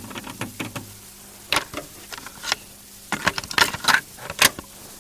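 Irregular clicks and rattles over a low steady hum, growing busier from about three seconds in.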